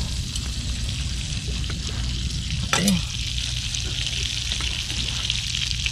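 Butter sizzling with a steady hiss as it melts in a frying pan over a portable gas stove, with one brief knock about three seconds in.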